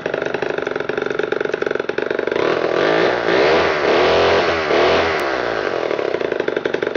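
Homelite Zip two-stroke chainsaw engine running at high revs. It grows louder with the pitch wavering from about two and a half seconds in, then eases back and cuts off at the end.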